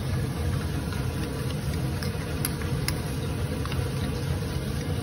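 Metal spoon stirring wet ground pumpkin-seed paste in a small steel bowl, with a few faint clicks of spoon on steel, over a steady low background hum.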